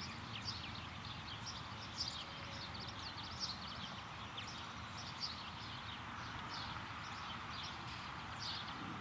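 Small birds chirping with many short, high notes that dip slightly in pitch, over a steady outdoor background noise.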